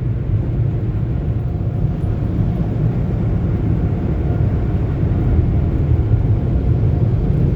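Automated car wash air dryer blowers running at the drying stage, a loud steady rush of air blowing the rinse water off the car, heard from inside the car.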